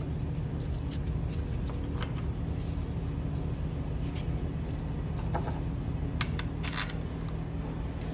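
Gloved hands fitting a new U-joint cross and bearing cap into a truck driveshaft yoke: soft rustling and small metal scrapes, with a few sharp metal clicks a little after six seconds in. A steady low hum runs underneath.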